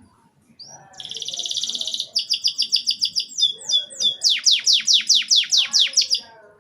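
Domestic canary singing a continuous phrase: a short note, a fast buzzing trill, a run of quick repeated chirps, then a series of high whistles sweeping steeply downward, about five a second, ending about six seconds in.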